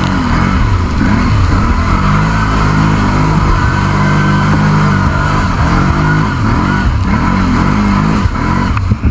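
ATV engine running under way on a muddy trail, its pitch rising and falling as the throttle opens and eases, with a steady stretch in the middle.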